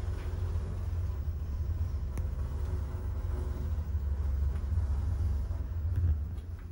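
Otis passenger elevator car travelling, a steady low rumble inside the car that drops away sharply about six seconds in as the ride ends. A faint click about two seconds in and a few more near the end.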